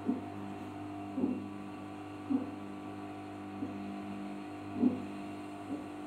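Arçelik 5083 front-loading washing machine tumbling an overloaded wash drum: a steady motor hum, with the wet clothes dropping and sloshing in a soft thud about once a second.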